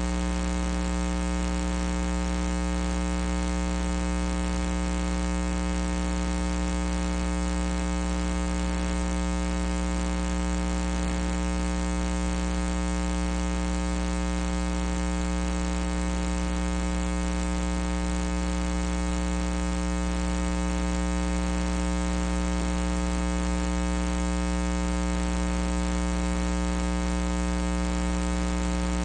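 Steady electrical mains hum and buzz in the audio feed, a low drone with a stack of overtones that never changes. No ring or crowd sounds stand out.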